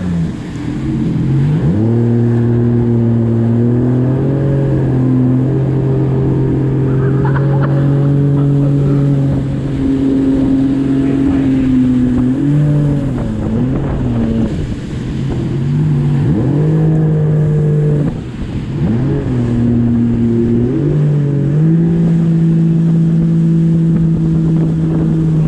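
Personal watercraft (jet ski) engine running at speed, its note steady for long stretches and dipping then climbing back several times as the revs change, over the rush of water and wind.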